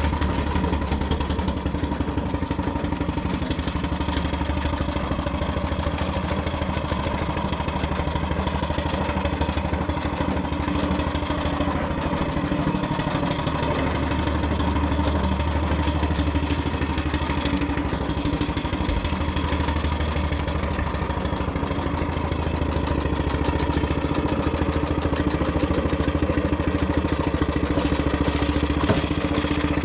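Miniature coal-fired steam traction engine under way, running steadily with a fast even exhaust beat and mechanical clatter.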